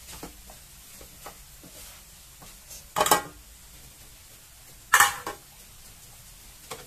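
Two short, loud metal scrapes about two seconds apart, made as a large aluminium rice pot is lifted and moved on a steel stovetop counter, with a few faint knocks before them.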